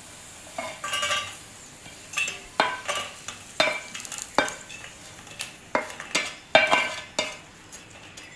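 A slotted metal spatula scraping and knocking against a non-stick frying pan and a stainless-steel plate as fried potato sticks are pushed off: about a dozen short, irregular scrapes and clinks, some with a brief metallic ring.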